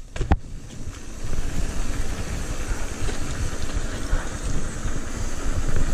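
Wind buffeting an action camera's microphone and tyres rolling on concrete as a mountain bike rides at speed, a steady low rumble with a single sharp knock about a third of a second in.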